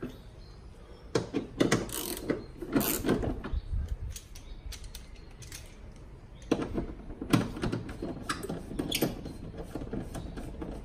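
Hand ratchet with a 13 mm socket spinning bolts loose: fast pawl clicking in two spells, starting about a second in and again after about six and a half seconds.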